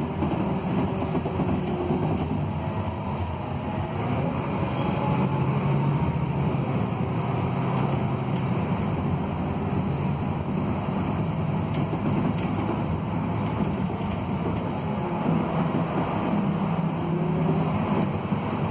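Scania K280UB bus under way, heard inside the passenger cabin: its 280 hp Scania DC09 Euro 6 diesel and ZF Ecolife automatic drivetrain give a steady rumble. The engine note swells about five seconds in and again near the end.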